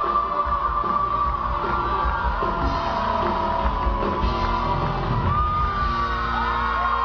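Live band music at a concert, loud and steady, with audience yells and whoops over it.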